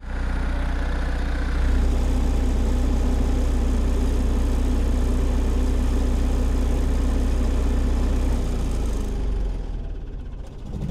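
MEP-802A 5 kW military diesel generator set running steadily at 1800 rpm, then shut off at its master switch and running down, fading out near the end.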